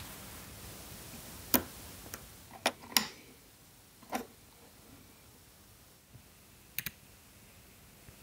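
A few sharp plastic clicks and taps from handling small electronics: a memory card pushed into a laptop's card slot and a micro-USB plug seated into a small single-board computer, with a quick double click near the end.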